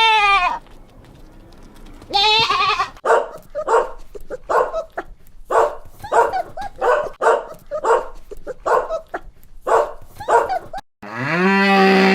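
Farm animal calls: a wavering bleat at the start, then a run of about a dozen short, evenly spaced calls, and after a sudden break a long, low held call near the end.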